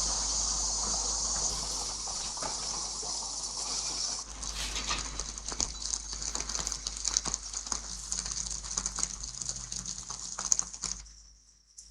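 Rain falling, a steady hiss of drops with many small patters and ticks, fading away sharply near the end.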